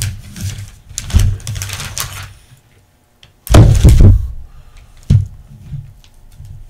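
Knocks and clatter of objects being handled on a worktable: a few knocks in the first two seconds, a louder clatter lasting about a second at around three and a half seconds, and a single sharp knock just after five seconds.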